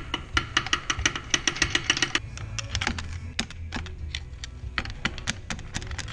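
Hand ratchet clicking in quick runs as it works bolts inside an open differential housing. The clicks come fast for about the first two seconds, then in sparser groups.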